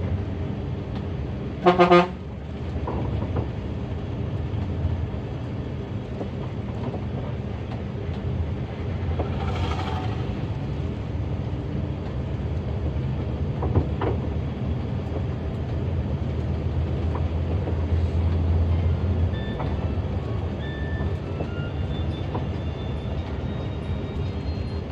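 Intercity bus engine running steadily on the road, with a short, loud horn blast about two seconds in and a fainter horn about ten seconds in.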